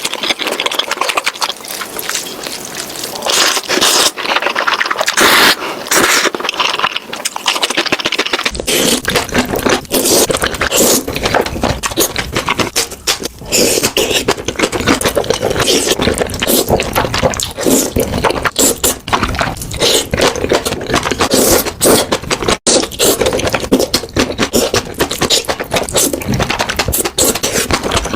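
Close-miked eating sounds: noodles being slurped and chewed, with many short wet clicks and smacks. A low steady background hum joins about a third of the way through.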